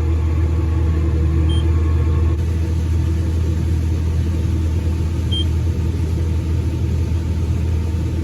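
Tractor engine running steadily under load as it drives a grain cart's unloading auger, a constant low drone. Two short high beeps sound, one about a second and a half in and another about four seconds later.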